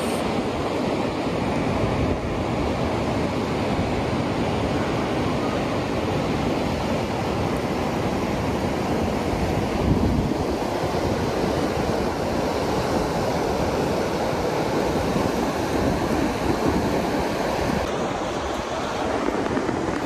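Steady wind buffeting the microphone over the continuous wash of ocean surf on a beach.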